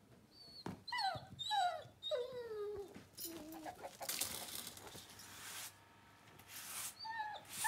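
A tied-up dog whining to be let loose, several high calls that fall in pitch. Then a push broom scrapes over a dirt yard in two long strokes.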